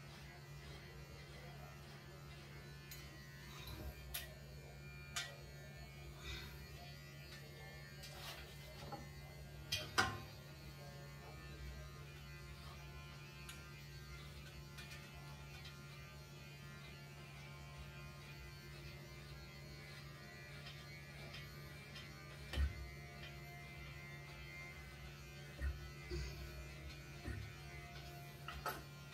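Electric pet hair clipper running with a steady low hum as it cuts a cat's fur short, with a few short knocks now and then.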